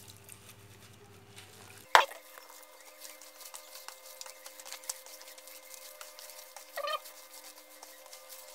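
Gloved hand mixing and squeezing shredded vegetables in wet chili paste in a plastic basin, giving scattered soft, wet crackles and squelches. A single sharp click about two seconds in is the loudest sound.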